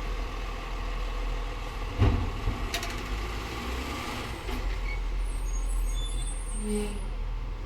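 Garbage truck engine running with a steady low rumble, with one loud sharp thump about two seconds in and a few clicks shortly after.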